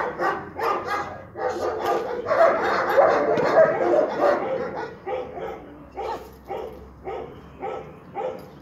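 Dog barking repeatedly at a protection-training decoy, about two barks a second, quicker and louder between two and four seconds in.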